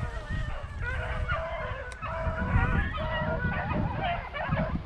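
A pack of beagles baying together, many overlapping hound voices in full cry on a rabbit's trail, over low rumbling noise.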